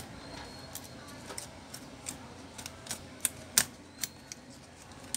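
Irregular sharp clicks and small snaps of plastic and a thin prying tool as a laptop LCD panel is worked free of its glued lid frame and lifted out. The loudest snap comes about three and a half seconds in.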